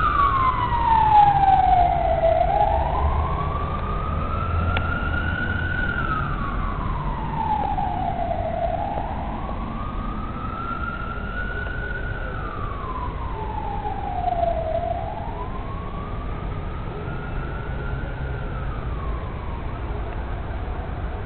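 Emergency vehicle siren on a slow wail, rising and falling about once every six seconds and growing gradually fainter as it moves off. It sounds over a low street traffic rumble.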